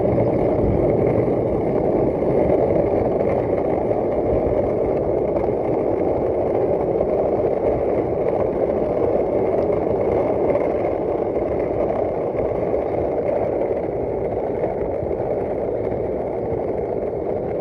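Skateboard wheels rolling on asphalt downhill: a steady rumbling roar that eases off slightly toward the end.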